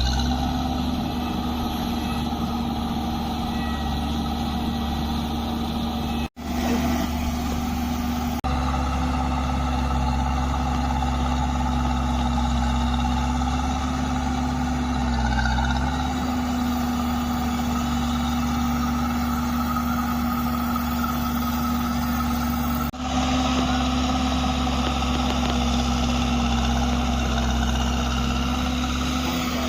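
Road roller engine running steadily with an even drone, broken by two very short dropouts, about a third of the way in and again near three-quarters.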